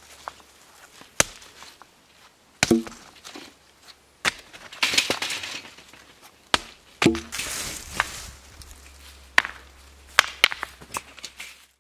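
Rocks being lifted out of a steel-mesh garden cart and tossed onto a stone pile: a string of sharp stone-on-stone clacks, a couple of them with a short ring from the cart, and scraping rattles as the rocks shift against each other in the cart.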